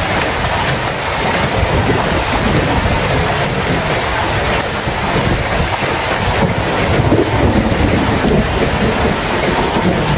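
Steady heavy rain with a continuous low rumble underneath.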